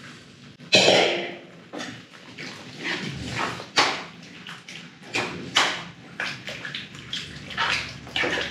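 A metal ladle stirring and scraping a wet curry of kidney beans, potatoes and peas in a metal kadhai, in a series of uneven sloshing strokes, the loudest about a second in. The beans and their cooking water have just been added to the frying masala.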